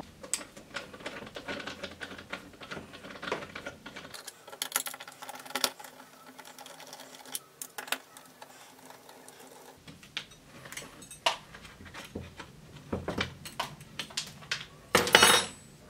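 Phillips screws being turned out of a steel shelf-pin strip on a pine board with a hand screwdriver: a run of small, irregular metallic clicks and scrapes, with a louder clatter near the end.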